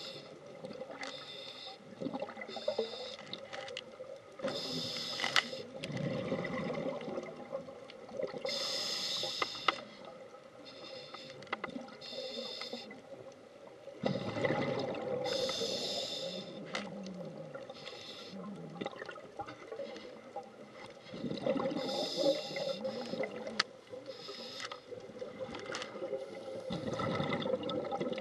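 Scuba diver breathing through a regulator underwater: a hissing breath in, then a bubbling breath out, repeating every few seconds.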